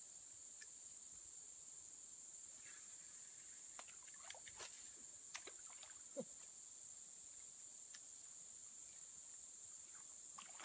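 Faint, steady high-pitched drone of an insect chorus, with a few soft clicks and short chirps scattered through it.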